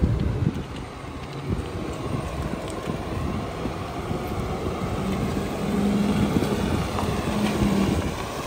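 Freightliner M2 rear-loader garbage truck's diesel engine running as the truck pulls away, with wind buffeting the microphone. A steady low hum joins about five seconds in.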